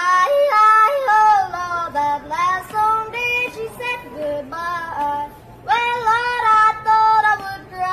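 A young boy singing a country song unaccompanied in a yodelling style, his voice flipping suddenly between notes in phrases broken by short pauses.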